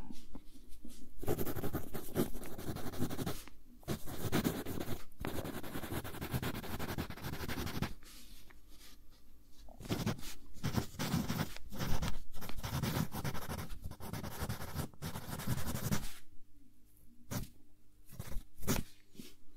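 Wooden graphite pencil writing cursive on lined notepaper: a scratchy stroke sound in long stretches, broken by short pauses and a longer one near the end.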